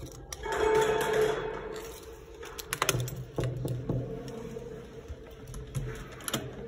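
Clicks and rattles of a metal door lock and handle being worked to open a room door. A louder, noisy sound with a short held tone comes about half a second in.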